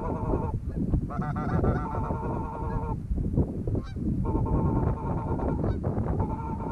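Goose calls blown by hunters: runs of rapid clucks and honks, broken by short pauses, the longest about three seconds in. Wind rumbles on the microphone underneath.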